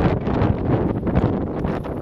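Wind buffeting the microphone in uneven gusts on the open deck of a moving ferry.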